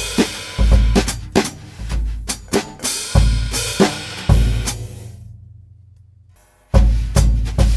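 Pearl Midtown compact drum kit played with brushes: bass drum thumps and snare strokes under ringing cymbals. A cymbal hit about three seconds in is left to ring out and fade away, then the groove comes back in with a loud accent near the end.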